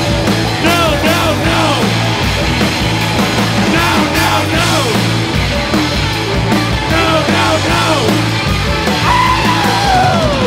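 Live punk/hardcore band playing loud: distorted electric guitar, bass and drum kit with cymbals, under yelled vocals. A long falling pitch slides down near the end.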